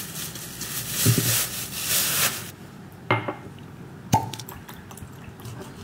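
A plastic carrier bag rustling as a bottle is pulled out of it, followed by a few sharp knocks as the juice bottle is handled and its cap twisted open. Near the end, celery juice is poured into a glass.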